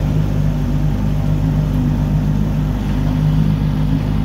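Antique outboard motor running steadily at cruising speed, pushing a small aluminum boat along, with an even, unchanging engine note.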